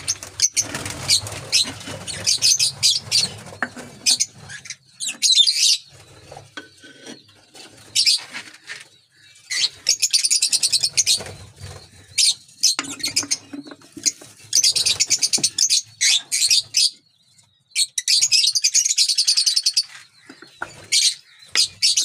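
Lovebirds chattering in repeated bursts of rapid, high-pitched chirps, each burst a second or two long with short gaps between. During the first few seconds there is also low rustling and knocking from a hand handling the clay-pot nest.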